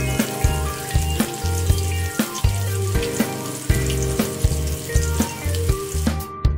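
Battered chicken pieces deep-frying in a wok of hot oil, a steady sizzle, under background music with a bass line and a regular beat. The sizzle cuts out shortly before the end while the music carries on.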